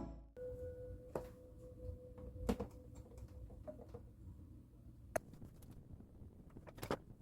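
Quiet room with a few light clicks and knocks and a faint steady hum.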